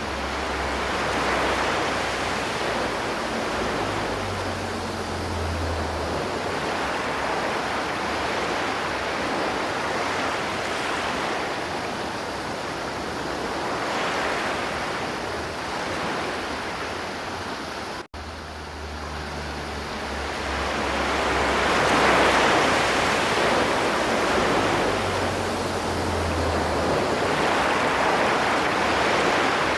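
River water flowing, a continuous rush that swells and eases slowly, broken by a split-second gap about 18 seconds in.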